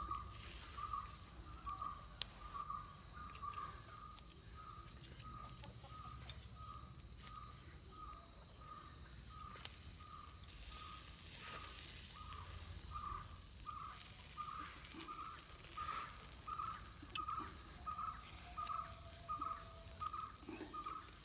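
A bird repeating one short note, about two times a second, at a steady pace, with a few faint clicks.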